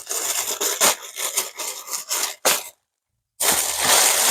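Plastic courier bag rustling and scraping in irregular bursts as the parcel is opened by hand, breaking off completely for under a second partway through.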